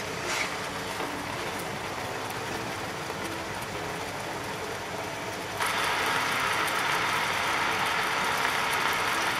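Garlic-and-onion sauce simmering and sizzling in a frying pan around pork loin slices. A little over halfway through, the sound steps up to a louder, brighter bubbling as the sauce alone boils down to thicken.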